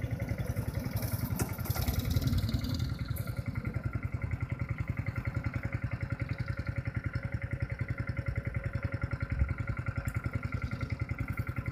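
Go-kart engine running steadily, with a fast, even low pulse and a steady whine over it.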